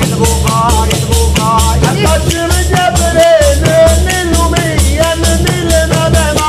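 Tammorra, the large southern Italian frame drum with jingles, beating a steady tammurriata rhythm while a man sings a long, wavering, ornamented folk melody over it.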